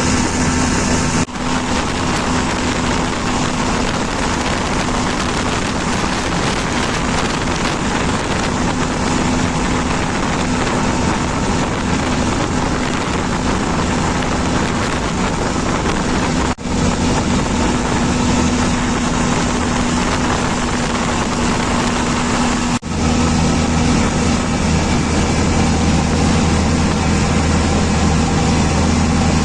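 An engine running steadily with a constant low drone, with wind noise on the microphone.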